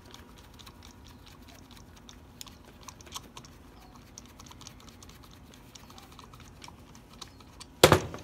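Screwdriver working out the reverse-threaded stainless steel screw that holds a pool pump impeller on its shaft: scattered light clicks and scrapes of metal on metal, with one loud knock near the end.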